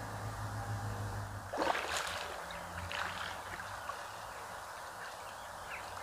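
Running river water at the bank, with a burst of splashing and rustling about a second and a half in and a few lighter splashes after it.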